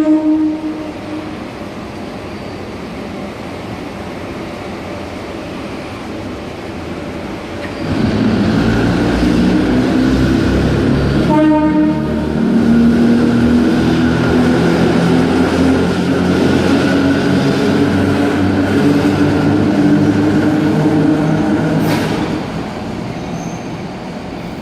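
A train passing close by, its rumble rising sharply about eight seconds in and easing off near the end, with a short horn blast a few seconds after it arrives.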